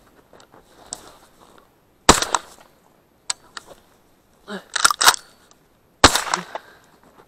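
Two shotgun shots fired at a running hare, about four seconds apart, each a sharp bang with a short ringing tail; the first is a miss. Between them comes a brief burst of loud sharp clicks and clatter.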